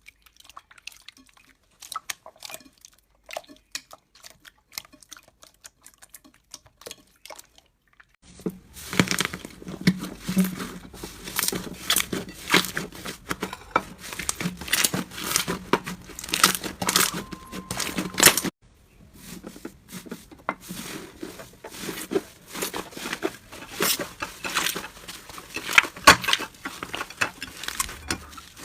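Hands working crunchy slime, giving close-up crackling and crinkling. There are sparse, faint crackles at first, then from about 8 seconds in it becomes dense and louder, with a brief break near the middle before it carries on.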